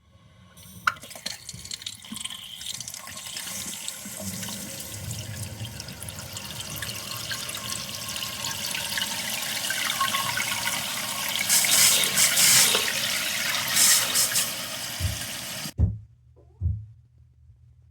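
Water running through a newly installed toilet fill valve as the tank refills after the supply is turned on. It grows louder over about fifteen seconds, stops abruptly, and is followed by two short knocks.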